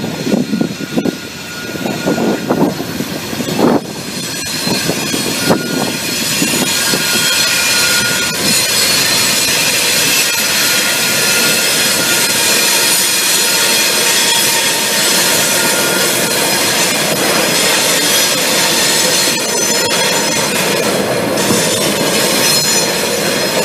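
CSX coal train led by GE diesel locomotives (a C40-8W and an ES40DC) passing over a steel girder bridge, with wind on the microphone in the first few seconds. From about four seconds in, the train noise builds into a loud, steady rush with high, thin wheel squeal from the rails.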